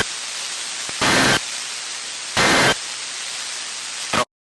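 EAS end-of-message data bursts: three short, screechy two-tone bursts about 1.4 s apart, marking the end of the warning, over steady radio static hiss. A brief blip follows just before the audio cuts off abruptly near the end.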